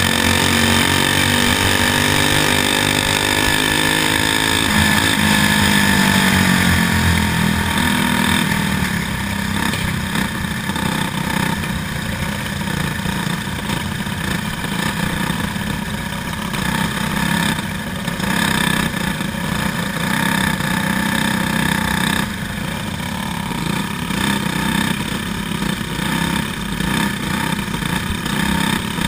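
Racing kart engine running hard on a dirt oval, heard from the kart's onboard camera; its pitch rises and falls with the throttle in the first several seconds, then it holds a steadier drone.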